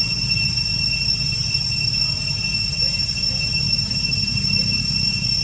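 Steady background noise: a constant low rumble under a steady high-pitched whine, with no distinct sounds standing out.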